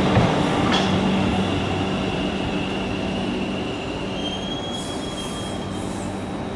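CSR electric multiple unit running past along the platform: steady rail and wheel noise with a low hum, and a high thin wheel squeal for about two seconds near the end. It grows gradually quieter as the last car goes by.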